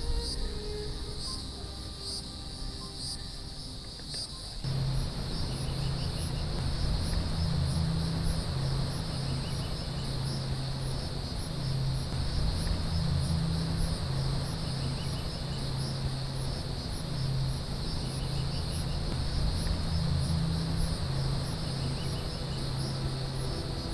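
Steady high-pitched trilling of an insect chorus in the background. From about four and a half seconds in, a low music drone comes in under it and carries on.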